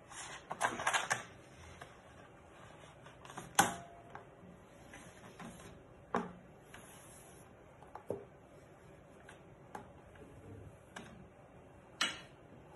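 Hands pressing and smoothing a self-adhesive sheet onto a 3D printer's flat bed, with a short rustle about half a second in and scattered sharp taps and knocks, the loudest about three and a half seconds in.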